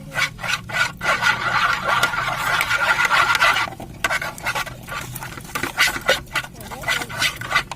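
A spoon stirring and scraping a sticky glue-and-activator slime mixture in a container, the mixture not yet clumping into slime. A dense run of stirring noise in the first half, then quick separate scrapes.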